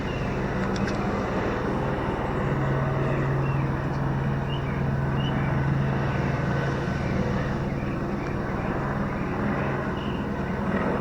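Helicopter flying overhead: a steady low drone from its rotor and engine, the hum strengthening about two and a half seconds in.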